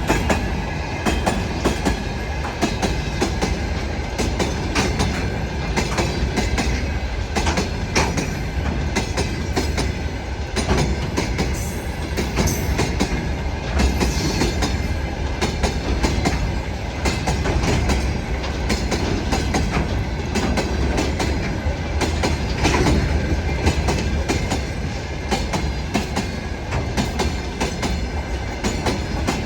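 Freight train wagons rolling past, their wheels clattering over the rail joints in a steady run of clicks over a continuous rumble.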